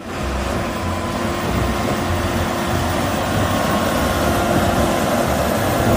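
Tractor engine running steadily, with a low uneven rumble under a constant noise.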